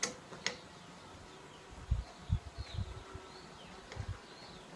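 Handling noise while power-supply wires are being connected to terminals: two sharp clicks near the start, then a run of soft low thuds in the middle. Faint short falling chirps of birds sound in the background.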